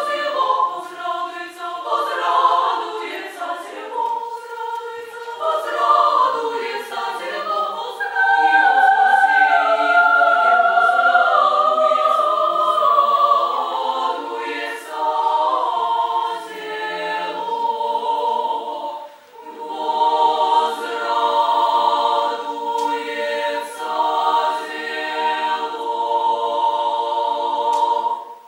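Female chamber choir singing a cappella in several harmonised parts. About twenty seconds in they settle onto a long held chord that cuts off right at the end.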